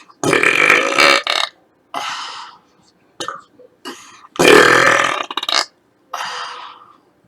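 A woman belching: two long, loud burps about four seconds apart, each lasting over a second, with shorter, quieter sounds between them.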